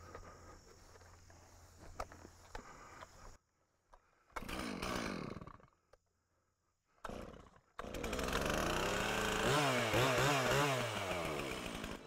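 Gasoline chainsaw running. It comes first in two short bursts cut off by sudden silences, then runs steadily from about two-thirds of the way in, revving up and down quickly several times.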